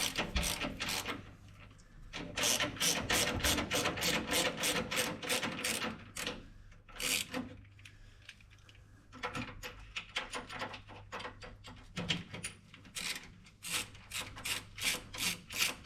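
Hand socket ratchet clicking in quick runs of strokes, stopping and starting several times, as a bolt on the sway bar mount is undone.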